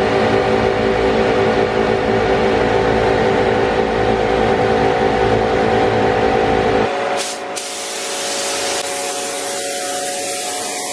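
A steady motor drone with a buzzing hum cuts off about seven seconds in. Then a gravity-feed paint spray gun loaded with clear coat starts with a short burst of air and keeps up a steady hiss of compressed air as it sprays.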